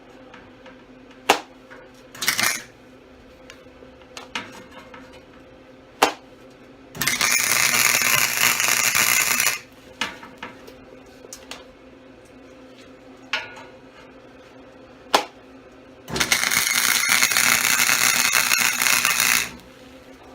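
Two tack welds being made on steel rebar: the welding arc runs for about three seconds each time, starting about seven and about sixteen seconds in. Sharp metallic clicks and knocks fall between the welds, over a steady low hum.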